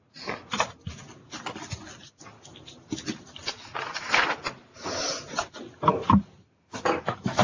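Classroom background noise: scattered irregular clicks and knocks with a few brief, muffled vocal sounds, loudest around three-quarters of the way in.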